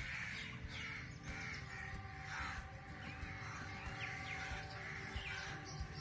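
Crows cawing over and over, about two harsh calls a second.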